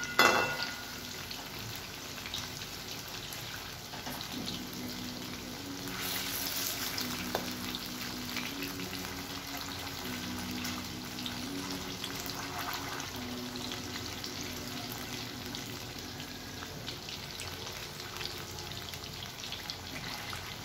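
Chicken pieces deep-frying in hot oil in a metal kadai: a steady sizzle with small crackles. Right at the start there is a ringing metal clank of the perforated slotted spoon against the pan.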